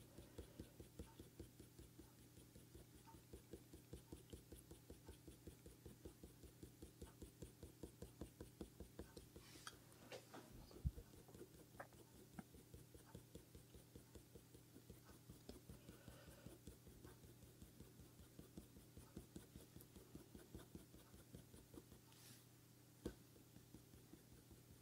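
Faint scratching of a coloured pencil on hot-press paper, in quick short strokes a few times a second. There are two sharper clicks, about eleven and twenty-three seconds in.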